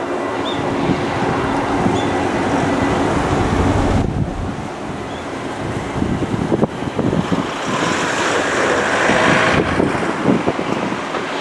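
Strong gusty wind buffeting the microphone, over the steady noise of an airliner's engines on approach. A brighter, hissier rush of sound builds near the end.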